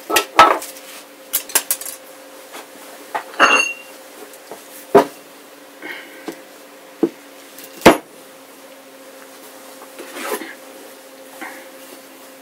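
About ten sharp, irregular knocks and clinks of objects being handled and set down on a worktable, among them a black 10-pound weight plate. The loudest come about half a second, five seconds and eight seconds in, and one gives a brief ringing clink.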